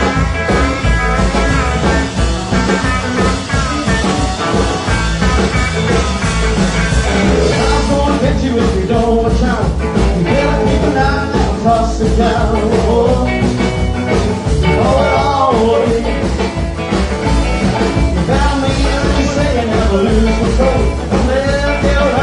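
Rock and roll band playing a song live, steady and loud, with a melodic vocal or lead line over the beat.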